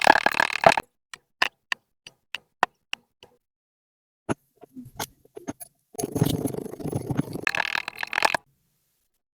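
Kinetic sand being squished and pressed by hand: dense crackling for under a second at the start and again for about two seconds near the end, with scattered single clicks in between.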